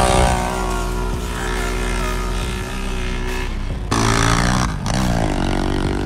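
ATV engines running at high revs as two quads race down a dirt drag strip. The sound changes abruptly about four seconds in, and an engine rises in pitch shortly after.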